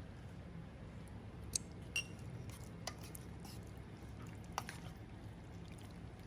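Chicken breasts being worked in an oily marinade: faint wet squishing with a few sharp light clicks and taps against the bowl, over a low steady hum.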